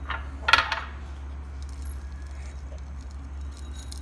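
A quick cluster of hard clinks, about half a second in, as the plastic chopper jar is tipped against a ceramic bowl to empty out crushed almonds. After that comes a faint rustle of the nuts, over a steady low hum.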